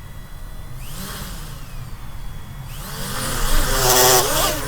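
DJI Mavic Mini's small brushless motors spinning up with aftermarket Parrot Anafi propellers: a whine that glides up in pitch about a second in and again near three seconds, then a louder, strongly pitched buzz that swells toward the end. The props vibrate badly on this setup, which the owner traces to the front right motor.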